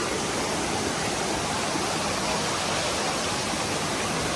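Steady rush of falling water from a rainforest waterfall or cascade, an even hiss with no let-up.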